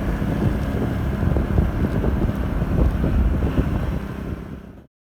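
Wind buffeting the microphone over the rumble of a Yamaha Majesty 125 scooter being ridden. The sound cuts off abruptly near the end.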